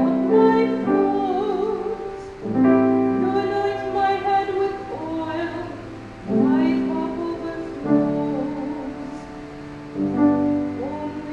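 A woman singing a slow sacred song with piano accompaniment: long held, wavering sung notes over piano chords struck roughly every four seconds. It comes between the readings of a funeral Mass, where the responsorial psalm is sung.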